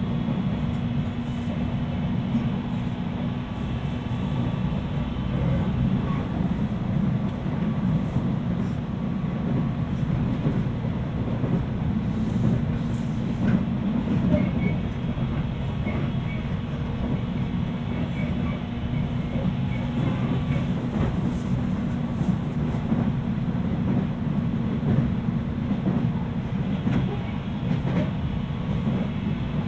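Steady running noise inside a JR 719 series AC electric multiple unit at speed: a continuous low rumble of wheels on rail with faint ticks from the track. The uploader finds this car's running sound jet-like and labels it an abnormal-sounding car.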